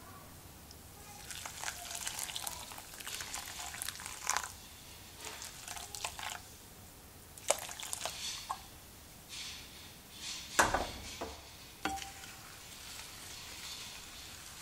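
Warm water poured in splashing bursts onto grated papelón (unrefined cane sugar) in a ceramic bowl. Near the end come a few sharp knocks, the first of them the loudest.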